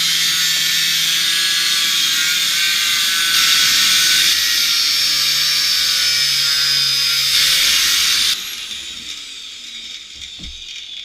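Power cutting tool, most likely an angle grinder with a cut-off disc, cutting through rusted sheet steel on the underside of the van, with a loud hissing screech and whistling tones. About eight seconds in the cutting eases off, and the tool's whine falls in pitch as it spins down.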